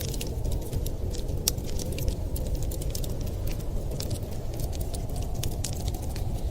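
Wood fire crackling with many small, irregular pops, over a steady low rumble of blizzard wind.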